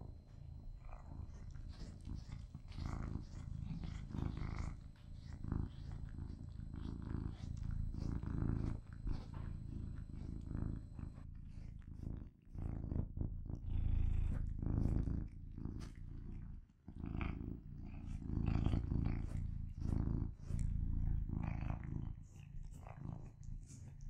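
Contented cat purring steadily, the purr swelling and easing with each breath.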